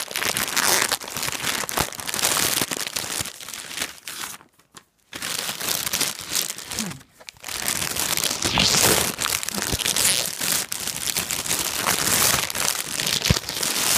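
Thin plastic mailing bag crinkling and rustling as it is unwrapped by hand, with a brief pause about four and a half seconds in.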